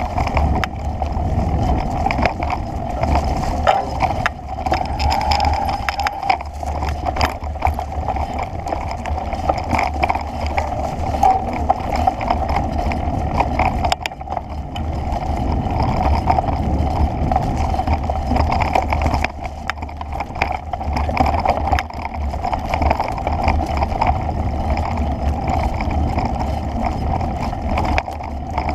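Steady rushing wind noise on the microphone with a heavy low rumble, overlaid by continual small rattles and knocks as the camera travels along a rough dirt trail.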